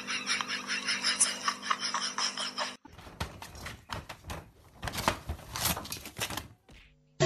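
A person laughing over a steady hum for the first three seconds or so. Then a cat claws at a shoji screen, tearing and ripping its paper in irregular crackling strokes for about three and a half seconds.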